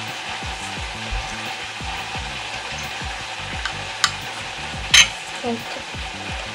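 A fork clicking and scraping against a ceramic plate as it lifts out a piece of chicken, a few sharp clicks with the loudest about five seconds in, over a steady hiss.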